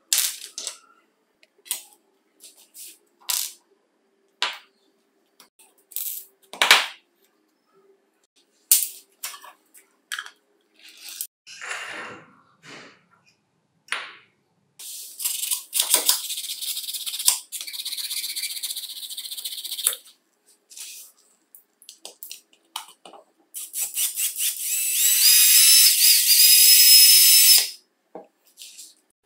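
Small metal parts of an impact driver clicking and clinking as they are handled on a wooden workbench, then the driver's DC motor, wired to its trigger switch and battery pack, is run twice. The first run is a high whine of about five seconds; the second is louder, about four seconds long, and its pitch rises slightly as it spins up.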